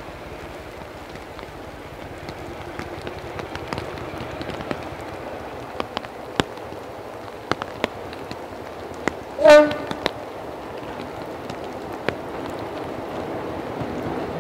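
A railway locomotive horn sounds one short blast of a single note, about half a second long, about nine and a half seconds in. Under it runs the rumble of an approaching train, growing louder toward the end, with scattered sharp clicks.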